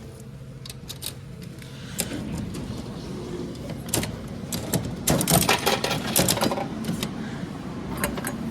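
Coin-operated vending machine's mechanism clicking and ratcheting as it is worked, with a loud rattling clatter about five seconds in as the prize drops.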